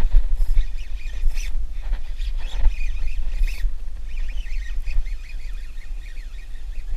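Wind buffeting the microphone with a steady low rumble, while many birds chirp and call over it. A few brief sharp noises come within the first four seconds.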